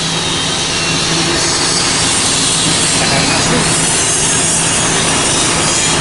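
Steady, continuous sanding of body filler on a bus's bodywork: a rasping hiss with a constant low hum beneath it.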